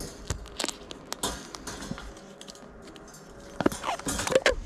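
Duct tape being pulled off the roll and wrapped around perforated steel angle iron, with scattered light clicks at first and louder ripping pulls of tape near the end.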